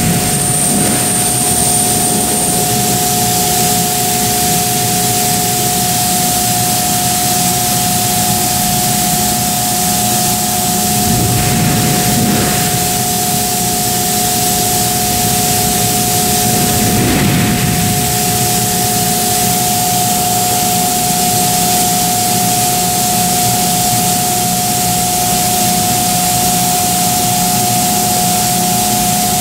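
Trumpf Trumatic L3030 3000 W CNC laser cutter running: a steady loud hiss with a constant mid-pitched whine, swelling briefly about 11 to 13 seconds in and again around 17 seconds.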